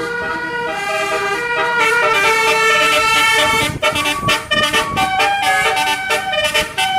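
Bus telolet horn, a basuri-style multi-tone musical horn, playing a tune of held notes that step from pitch to pitch. The notes break off briefly a couple of times around the middle and again near the end.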